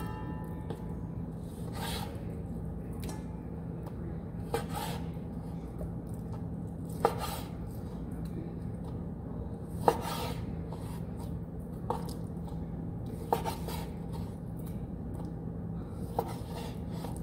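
Kitchen handling while raw beef is prepared: sharp knocks and clinks of a knife and dishes, one every one to three seconds, over a steady low hum.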